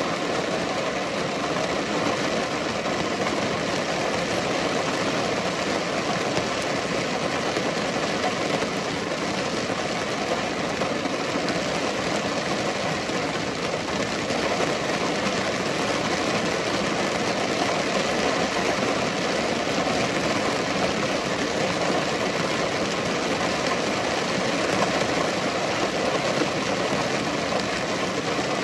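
Steady rain falling: an even hiss of many drops that never lets up.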